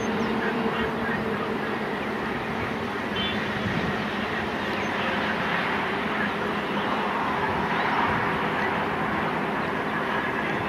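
Distant EMD WDP 4B diesel locomotive, with a 16-cylinder two-stroke engine, working hard as it approaches with its train, a steady engine drone mixed with open-air noise.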